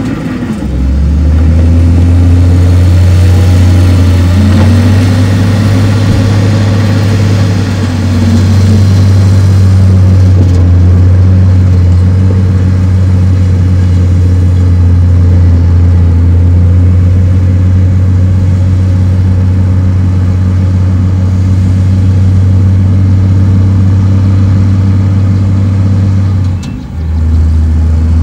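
Heavy diesel earthmoving machinery running, a loud steady low engine drone. It briefly drops out near the end and comes back at a slightly different pitch.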